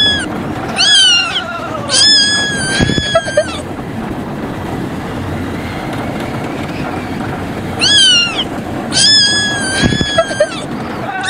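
A kitten screams in a high, repeated cry: a short falling yowl, then a long held one, twice over, under a steady rushing noise.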